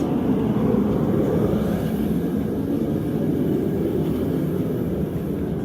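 A forge running with a steady low roar.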